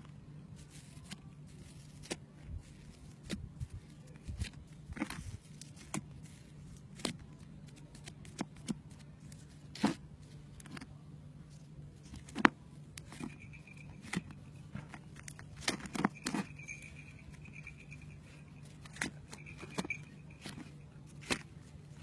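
Fluffy slime being poked and pressed with fingers in a plastic tub, giving irregular crackles and small pops, over a steady low hum.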